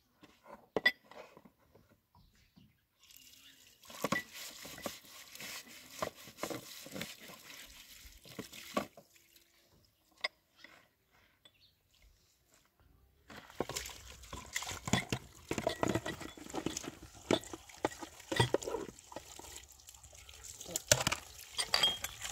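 Water splashing and running, with clinks and knocks of pots and dishes, in two stretches separated by a few seconds of near quiet.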